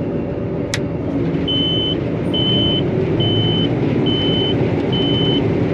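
Gleaner R52 combine running steadily, heard from the cab, just after its separator has been engaged and the throttle raised. A short sharp click comes about a second in, then five evenly spaced high-pitched beeps from a cab alarm, about one a second.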